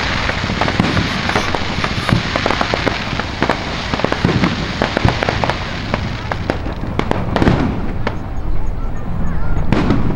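Aerial firework shells bursting overhead: dense crackling and popping for about seven seconds, then thinning, with two louder booms in the second half.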